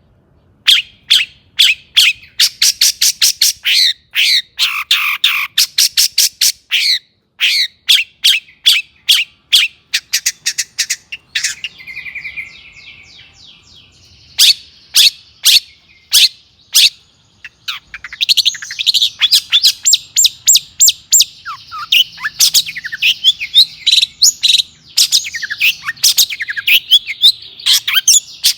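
Long-tailed shrike (cendet) singing: long runs of loud, sharp, harsh notes in quick succession, a buzzy trill about twelve seconds in, and from about eighteen seconds a dense, fast twittering warble.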